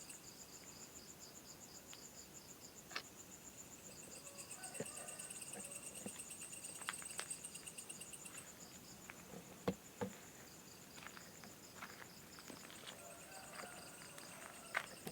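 Insects chirping: a high, evenly pulsed trill that comes in bouts of a few seconds, with a few faint clicks and two sharper knocks about ten seconds in.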